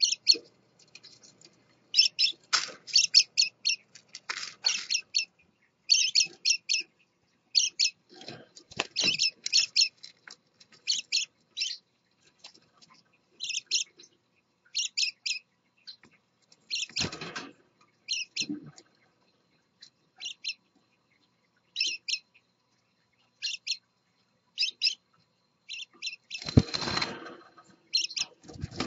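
Scarlet-chested parakeets chirping: short high calls in quick clusters, repeated every second or two. A few brief rustling scuffles come in, the longest about two-thirds of the way through and near the end.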